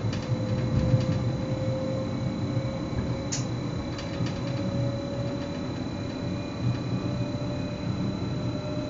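Electric commuter train running, heard from the driver's cab: a steady rumble of wheels on rail with a whine that slowly rises in pitch, and a single short click about three seconds in.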